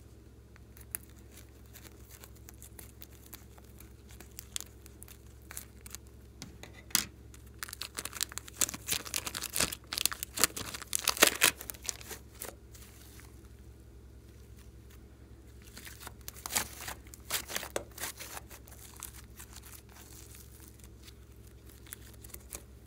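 Plastic piping bag crinkling and crackling as it is squeezed and crumpled around glossy slime, with a dense spell of crackles in the middle (the loudest part) and a shorter spell later. Scattered soft clicks come before it.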